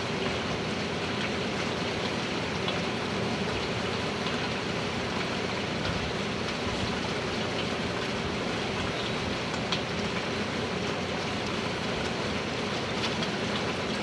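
Hurricane rain falling steadily, an even hiss with a few sharper drop ticks scattered through it.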